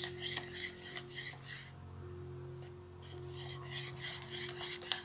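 A thin metal stick stirring and scraping a white slime mixture in a plastic bucket, in quick rasping strokes with a pause of about a second near the middle. The mixture is not yet setting into slime.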